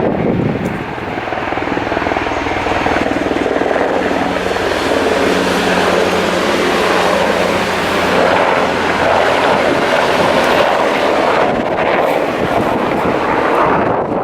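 JR Tokaido Line electric train passing close by at speed: a loud, steady rumble of wheels on rail with a low motor hum through the middle, fading near the end.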